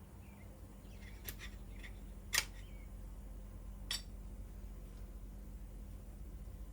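Tools and brake parts being handled during brake work: a few sharp clicks, the loudest about two and a half seconds in, over a steady low hum.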